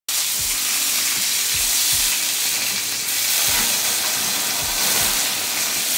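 Chicken fillets sizzling steadily on a hot cast iron grill pan, a dense even hiss of frying fat and marinade.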